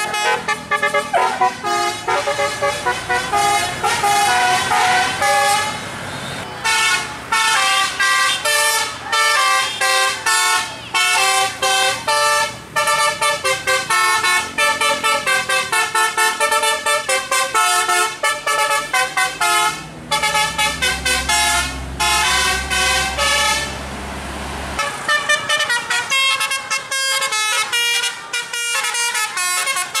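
A bus's telolet basuri musical horn playing a fast melody of short notes that change pitch rapidly, nearly without pause apart from a few brief breaks. A bus engine's low drone sounds underneath for a few seconds past the middle.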